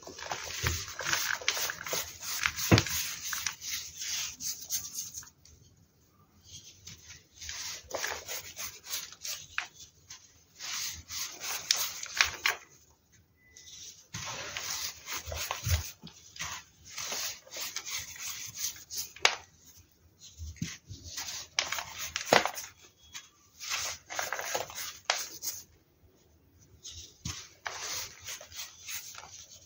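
Hands crushing and crumbling dried baking soda cylinders: crunchy, crackling crumbles in bursts of a few seconds, with short pauses between.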